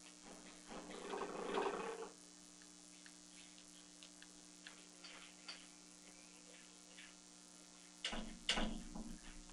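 Faint room tone with a steady electrical hum on the recording, light scattered ticks, and two brief indistinct noises about a second in and near the end.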